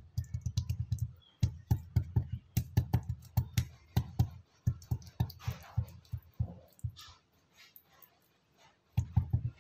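Quick runs of soft thumps and squishes, several a second, as fingers press and pack minced pork filling into a hollowed bitter melon. There is a quiet pause late on, then one more short run.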